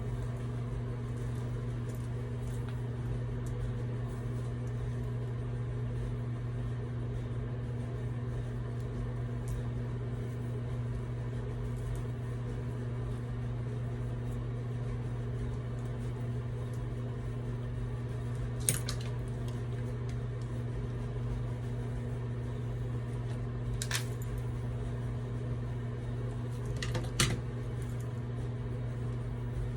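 Steady low hum in a small room, with a few light clicks: one about two-thirds of the way in and two near the end.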